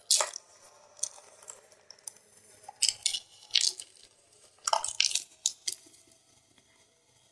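Thin pieces of gym chalk crushed by hand: about eight crisp, crackly crunches, several in quick pairs, with faint powdery crumbling between them.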